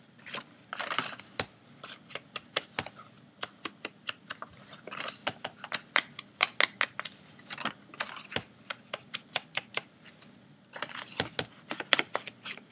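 Quick, irregular light taps and clicks, several a second with a short pause about ten seconds in, as the edges of a paper piece are inked with a chocolate ink pad to distress them.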